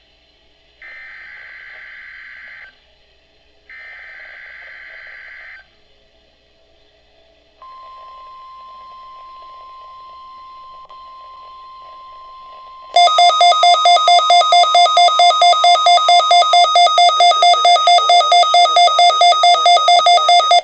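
Midland WR120EZ weather radio receiving an NOAA Weather Radio Required Weekly Test: the end of one burst and then two more short bursts of the SAME digital header, a warbling data screech, with a pause after them. A steady single tone starts about seven seconds in. Some five seconds later the radio's own alarm starts, much louder, beeping rapidly at about four beeps a second.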